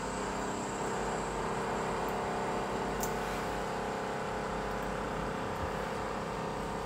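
Steady machine hum made of several held tones, unchanging throughout.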